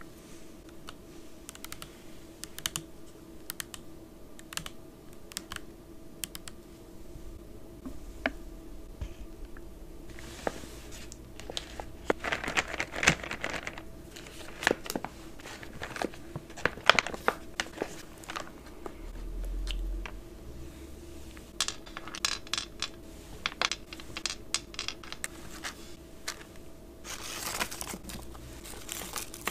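Close-miked fingernail taps and clicks on food packaging, with plastic snack-bag crinkling and rustling of foil candy wrappers in repeated bursts that grow denser after the first few seconds.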